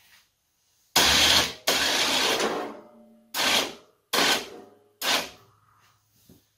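Electric ATV winch running in bursts, winding in its rope to lift a snowplow blade off the floor. There is one run of about two seconds about a second in, then three short pulls under a second apart.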